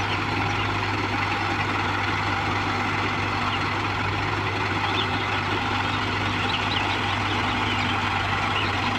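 Heavy diesel engine running steadily at constant speed, a level drone that does not change.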